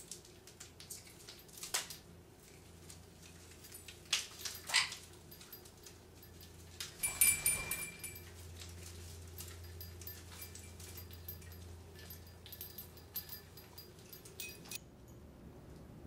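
Scattered knocks, clicks and rattles of hanging plastic and wooden parrot toys as a parrot climbs through an indoor play gym. The busiest and loudest clatter comes about seven seconds in.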